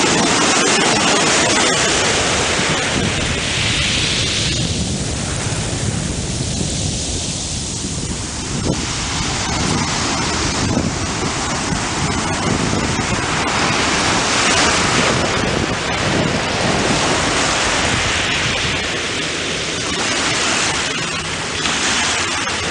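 Surf washing in and out over a wet shell-gravel beach, the hiss swelling and easing with each wave, over a low rumble of wind on the microphone.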